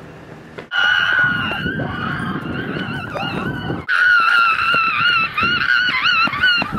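A kid screaming in terror: two long, high-pitched screams, the first starting just under a second in and the second following a brief break about four seconds in, its pitch wavering toward the end.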